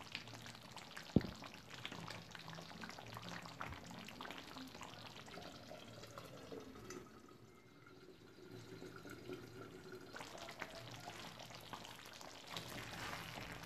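Faint bubbling of thick jackfruit curry simmering on low heat in a clay pot, with a spoon stirring and scraping through it. One sharp knock sounds about a second in, and the bubbling is quieter for a few seconds in the middle.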